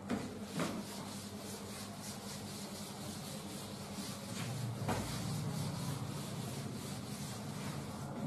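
A cloth duster wiping chalk off a blackboard: a faint rubbing swish in many repeated strokes.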